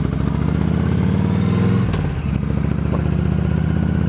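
Yamaha V-Star's V-twin motorcycle engine running steadily at low revs. About halfway through, the note breaks briefly, then rises gently as the bike pulls away.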